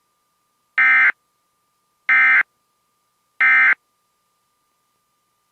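Emergency Alert System end-of-message data tones: three identical short bursts of harsh, buzzy digital data, about a second and a half apart, marking the end of the alert.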